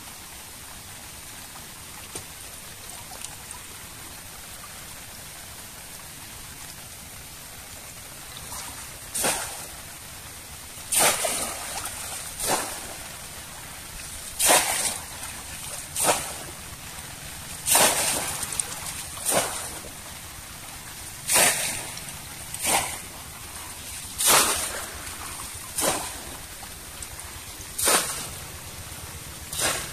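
Cone-shaped bamboo fish trap being plunged again and again into shallow river water, about a dozen loud splashes a second or two apart, starting about nine seconds in. Before that, only a steady hiss of water.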